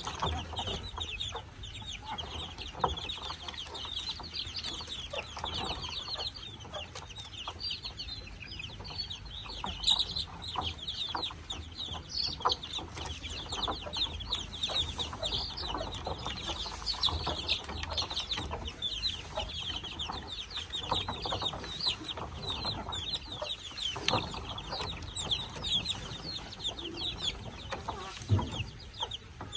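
A brood of five-day-old chicks peeping continuously, many short high-pitched cheeps overlapping, with a few brief knocks now and then.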